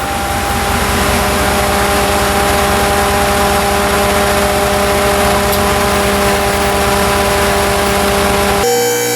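A vehicle engine running at a steady speed under a loud rushing noise, its pitch held constant; the sound cuts off abruptly near the end.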